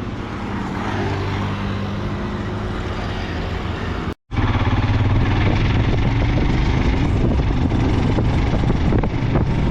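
Vehicle engine hum and road noise while driving, steady throughout. About four seconds in it cuts out for a moment and comes back louder.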